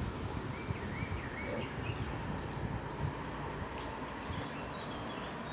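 Steady low outdoor rumble of background noise, with a few faint bird chirps about one and a half to two seconds in.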